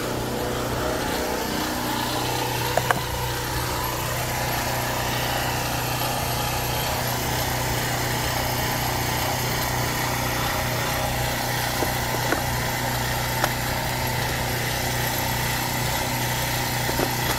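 KingCraft portable gasoline generator's engine running steadily, freshly started with the choke now off. A few light clicks are heard over it.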